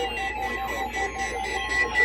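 Electronic synthesizer music: a note pulsing at an even beat under slowly gliding tones.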